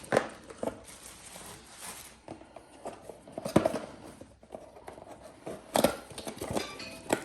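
Unpacking and handling noises: plastic packaging rustling, with scattered clicks and knocks as parts and cables are taken out and set down.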